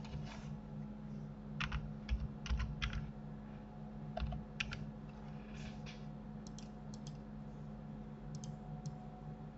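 Typing on a computer keyboard: clusters of sharp keystrokes between about one and a half and six seconds in, then a few lighter clicks, over a steady low electrical hum.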